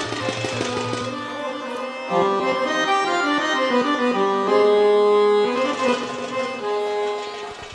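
Live Middle Eastern belly-dance music: an accordion-sounding melody moving in short held notes, with goblet drum (Egyptian tabla) strokes that stand out in the first second.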